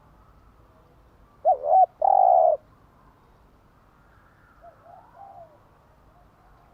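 Spotted dove cooing: one loud phrase, a short wavering note followed by a longer held note, then a fainter coo about three seconds later.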